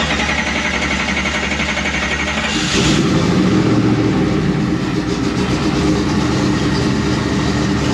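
First start of a freshly installed Texas Speed 388 cubic-inch turbocharged LS V8. It fires up rough and uneven, then about three seconds in settles into a steady idle.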